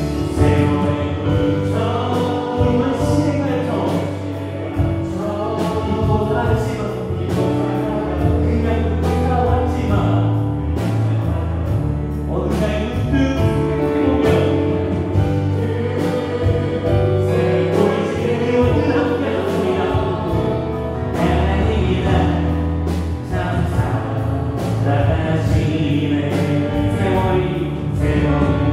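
Live Christian worship band playing a gospel song with drums, electric guitar, bass guitar and keyboards, with voices singing along.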